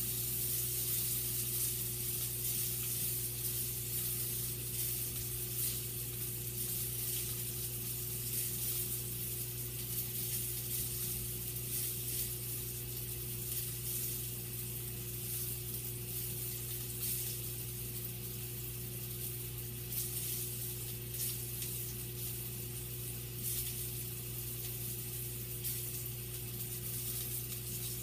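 Sausages frying in a pan, sizzling steadily with scattered small crackles, over a steady low hum.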